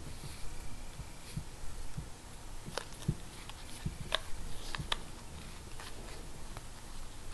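Small handling sounds of a steel crochet hook and cotton thread being worked by hand: a few sharp clicks, the clearest about three, four and five seconds in, over a low rustle.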